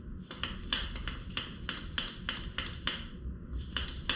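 Hand shock pump being stroked to refill an air shock, giving quick sharp metallic clicks about three a second, with a short pause near the end.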